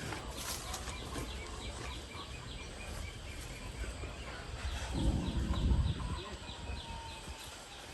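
Birds calling outdoors, with a rapid run of short high chirps about three a second. A louder low rumble comes for about a second near the middle.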